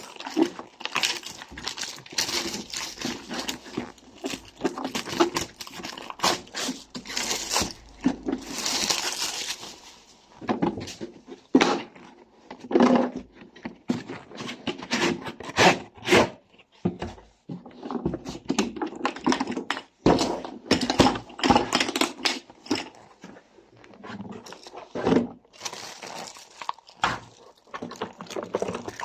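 Packaging being opened and unpacked, with irregular crinkling, rustling and tearing, and occasional knocks as items are handled.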